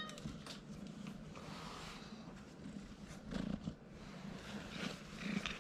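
Tabby kitten purring while it is stroked, a steady low purr that swells twice, with light rustling of fur and clothing close by.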